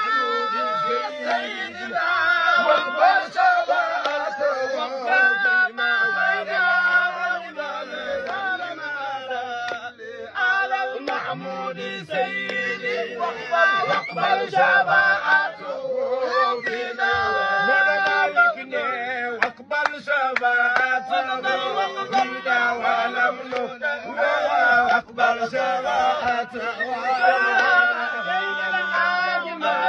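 A group of men singing Arabic devotional praise poetry together as a chant, with hand clapping.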